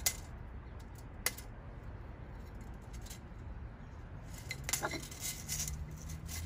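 Light clicks and taps of a glass bottle being turned on a brick ledge and marked with a pen, a few scattered ticks with a short squeak about five seconds in, over a low steady background hum.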